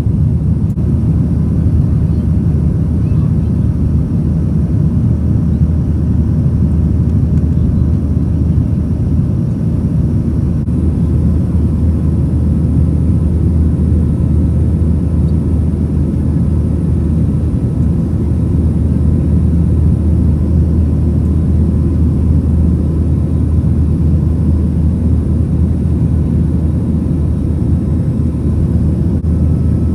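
Steady in-cabin noise of a Boeing 737-900ER in climb, heard from a window seat over the wing: the low rumble of its CFM56-7B engines and the rush of air past the fuselage, with a faint steady whine above.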